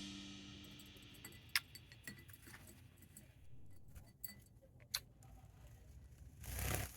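The last chord of background music fading out, followed by a few faint, scattered clicks.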